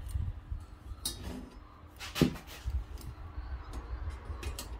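Clicks and knocks of a perforated aluminium plate and a metal caliper being handled, with the loudest a single sharp knock about two seconds in.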